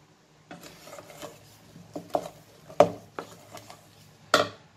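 Wooden spatula stirring thick cookie dough in a stainless steel bowl: soft scrapes and irregular knocks of wood against the metal, the loudest near the middle and again near the end.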